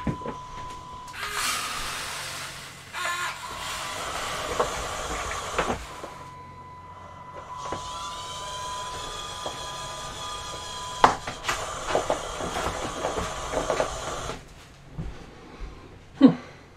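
Small electric gear motors of a toy tractor robot whining as it drives, the pitch shifting as it speeds up and slows. It pauses briefly about six seconds in and goes quieter near the end, with scattered clicks and knocks.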